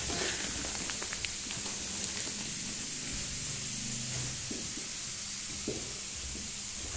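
Steady hiss of air seeping into the opened vacuum-sealed plastic as a compressed spring mattress expands, fading slightly, with a few faint crinkles of plastic.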